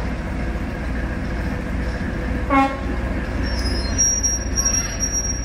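Heritage diesel train running with a steady low rumble. A short horn toot sounds about two and a half seconds in, and thin high wheel squeal sets in over the last couple of seconds.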